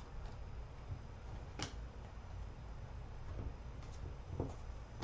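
A few faint, scattered clicks and taps of trading cards handled by hand, as a stack is picked up and flipped through.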